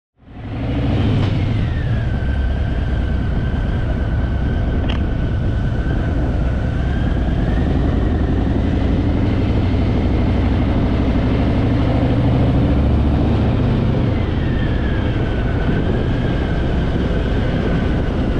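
Harley-Davidson Fat Boy's V-twin engine running at steady cruising speed while riding, a low rumble mixed with wind and road noise.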